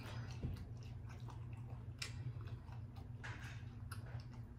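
Close-mic chewing and mouth sounds of someone eating fried turtle dipped in turtle soup: scattered small wet clicks and crackles over a steady low hum.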